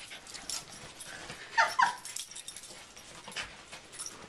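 A dog gives two quick high-pitched whimpers back to back about a second and a half in, over the faint rustle of a quilt being unfolded.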